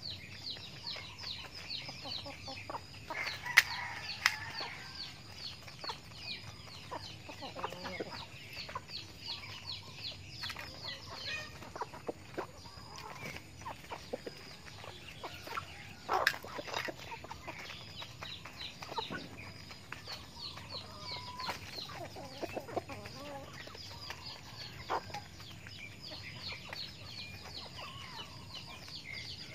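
Chickens clucking softly while pecking grain, with a few sharp taps now and then. A rapid, high-pitched chirping repeats throughout.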